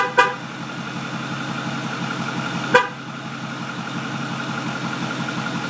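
Truck horn giving short chirps, two in quick succession and then one more about three seconds in, over the steady idle of a 2008 Ford Super Duty's Power Stroke diesel engine.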